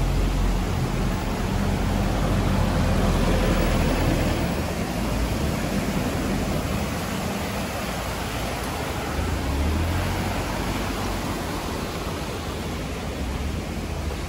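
Rushing river water, a steady even hiss, with wind buffeting the unshielded phone microphone in low rumbles that swell and fade.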